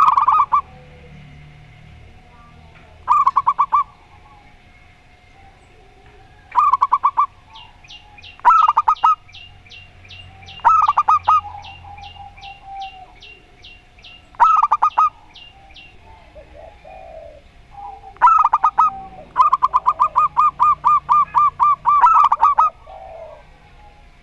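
Zebra doves (perkutut) calling, each call a short burst of rapid staccato cooing notes, repeated every few seconds, with one longer run of notes near the end. Through the first half a separate high-pitched chirp repeats about three times a second.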